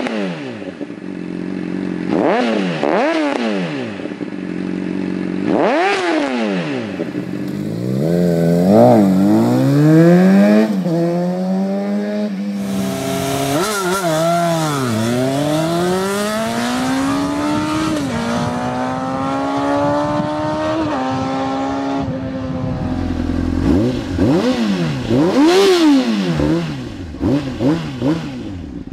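Honda CBR sportbikes' inline-four engines through aftermarket exhausts, several bikes one after another. First a 2003 CBR600RR with a Two Brothers M5 slip-on is revved hard and let fall a few times at a standstill. Then a bike accelerates through the gears, its pitch climbing and dropping at each upshift, and near the end a CBR600RR with a Micron exhaust is revved sharply again.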